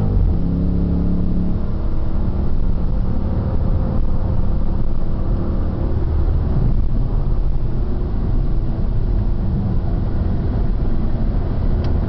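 Dodge Charger SRT at speed on a race track, heard from inside the cabin: a loud, steady low rumble of engine and road noise.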